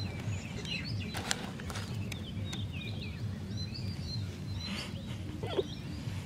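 Small birds chirping and twittering in many short calls over a low, steady, evenly pulsing hum, with a few sharp clicks.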